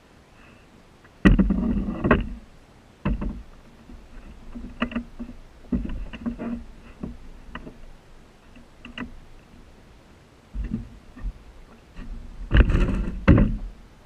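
Hollow knocks and thumps through a canoe's hull as it lands on a sandy shore and the paddler shifts, handles the paddle and climbs out. The loudest are a cluster of thumps about a second in and another near the end, with smaller knocks in between.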